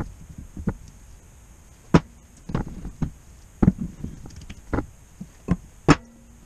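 Metal air-compressor parts clunking and clicking as they are handled and set down, about eight sharp knocks spread irregularly, the loudest about two seconds in and near the end.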